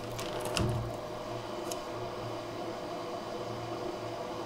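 A steady mechanical hum, such as a workbench fan or motor makes, with a soft knock about half a second in and a faint tick a little later.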